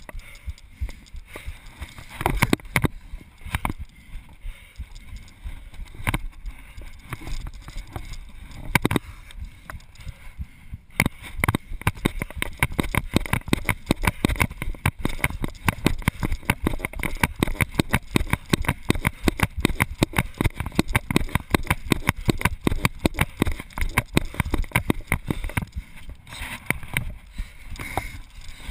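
Footsteps, scuffs and knocks of a freerunner climbing and running across rooftops, picked up by a body-mounted GoPro camera in its housing, over a low rumble. From about a third of the way in the knocks come fast and close together, like running steps.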